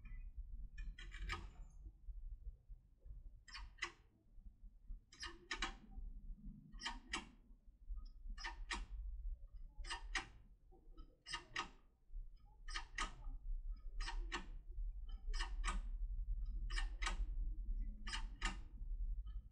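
Turbo decoder pick worked up and down in a Pro Cam/Border 3+3 lever lock, giving sharp clicks, mostly in pairs, about every one and a half seconds. The clicks are the tool catching on the levers' false hooks (traps) as it works past them.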